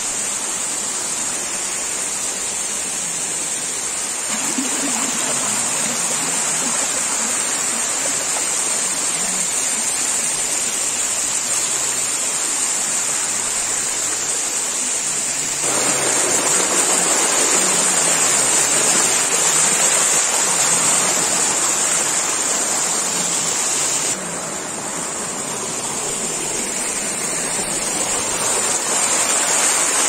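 Waterfall in heavy monsoon flow: a steady rush of falling water, its loudness jumping up or down abruptly a few times, about four, sixteen and twenty-four seconds in.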